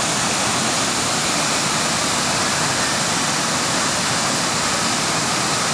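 Düden Waterfall's water pouring down, a steady loud rush.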